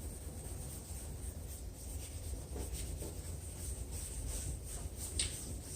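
Hand wet-sanding of a plastic headlight lens with the coarse green side of a gritty sanding sponge: repeated back-and-forth rubbing strokes, over a steady low rumble.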